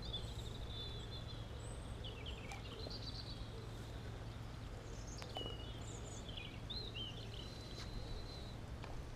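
Small birds chirping and calling faintly, many short chirps and glides, over a steady low background hum.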